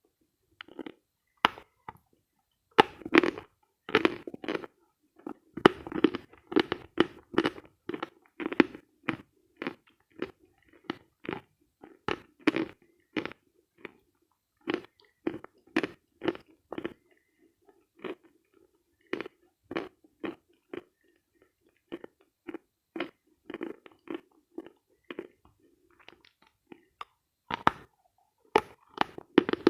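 Dry, dense chalk being bitten and chewed close to the microphone: a steady run of sharp, dry crunches, about one to two a second, with a short lull about two-thirds of the way through.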